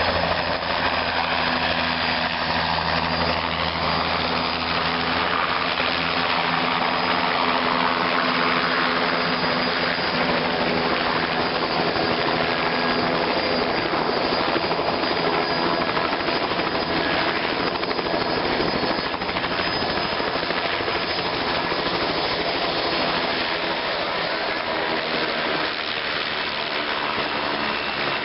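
Tour helicopter on the helipad just after landing, engine and rotor running in a loud, steady, incessant racket.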